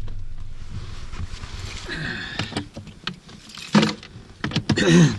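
Rustling and a few light clicks of things being handled inside a small car's cabin, with a short bit of voice near the end.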